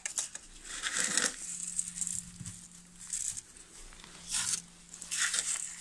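Dry grain feed rustling and scraping as a plastic scoop works in a plastic feed container, in about six short bursts.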